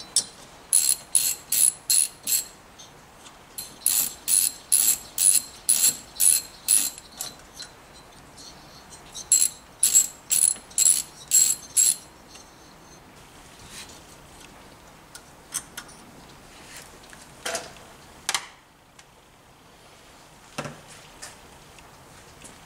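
Hand ratchet wrench clicking in three runs of quick back-swings, about two to three strokes a second, as it spins loose the cylinder-head nuts on a Motobecane AV7 moped engine. Then a few light knocks of metal parts being handled.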